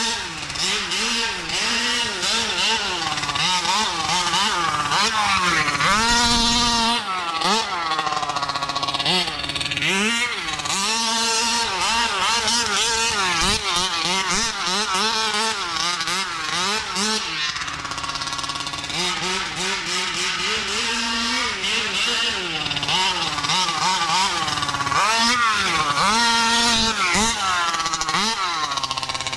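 Taylor 50cc two-stroke engine of a Kraken Vekkta 1/5-scale RC buggy, revving up and falling back again and again as the car is driven around the track. The buzzing pitch climbs and drops every second or two, reaching about 15,000 rpm at full throttle.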